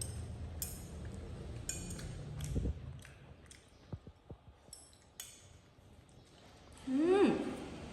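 Small clicks and clinks of a baby monkey eating. Near the end comes a short vocal call that rises and then falls in pitch.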